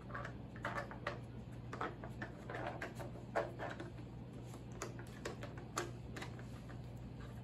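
Plastic dog puzzle feeder clicking and clattering irregularly as a small terrier noses and shifts its pieces, with a sharper clack about three and a half seconds in and another near six seconds.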